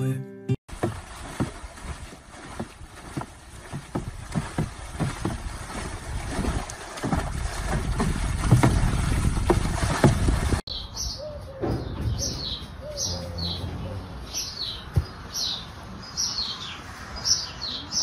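Water splashing and sloshing in a tub as a horse stands in it and paws, in many irregular splashes. After a cut, small birds chirping: short, high, falling chirps about once a second.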